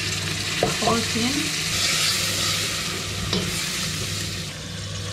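Canned tomatoes sizzling as they are poured onto hot fried onions in a steel pot, with a wooden spoon stirring. The sizzle swells about two seconds in.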